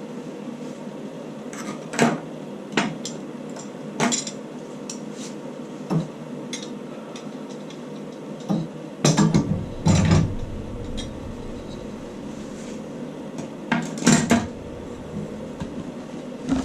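Scattered metallic clinks and knocks of tools and metal parts being handled and set down, with clusters of several quick knocks about nine and fourteen seconds in.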